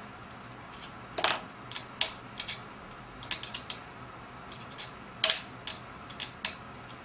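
Irregular clicks and clinks of small hand tools being picked up and set down, about a dozen in all, with two louder knocks about a second in and about five seconds in.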